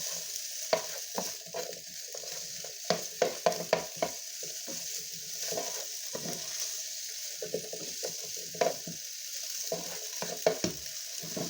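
Pre-cooked chicken frying in a little oil, sizzling steadily while a utensil stirs it, with sharp knocks and scrapes against the pan, most in a quick run about three seconds in.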